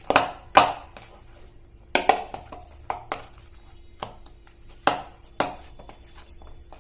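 Bhatura dough being kneaded and pressed in a mixing bowl: irregular knocks and thuds of hands and dough against the bowl, roughly one a second, over a faint steady hum.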